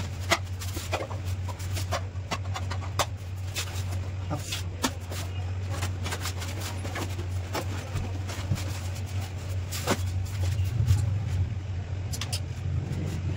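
Vehicle engine running with a steady low hum, with scattered sharp clicks and knocks over it.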